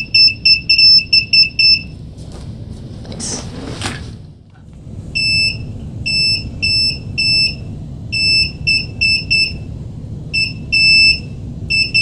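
Electronic buzzer on a breadboard push-button circuit beeping one steady high pitch as the button is tapped in short and long Morse code presses. The beeping stops for about three seconds in the middle, where there is a brief rustle, then starts again.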